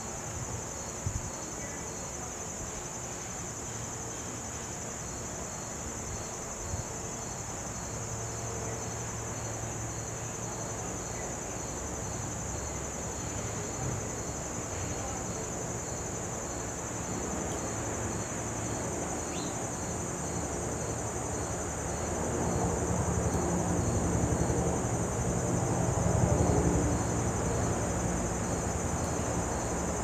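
Insects, crickets among them, keep up a steady high trilling with a fainter chirp repeating at an even pace. A low rumble rises and falls in the last third.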